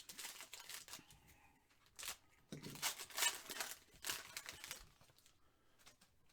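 Trading card pack wrapper tearing and crinkling as cards are handled: a few rustling stretches, the longest and loudest in the middle.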